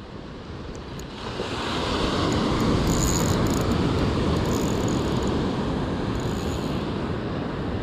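Beach ambience: a steady rushing of wind and surf that swells about a second and a half in and then holds.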